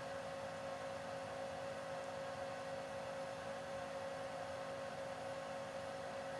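Faint steady electrical hum: a couple of steady mid-pitched tones over a low hiss.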